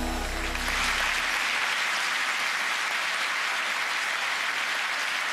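Large theatre audience applauding steadily. A low musical note fades out in the first second or so.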